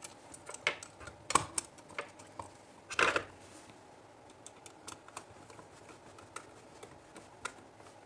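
Scattered light clicks and taps of work on a plastic modular switch plate: a screwdriver tightening a bell switch terminal screw onto a red wire, and fingers handling the wire and plate. The loudest taps come about a second in and about three seconds in.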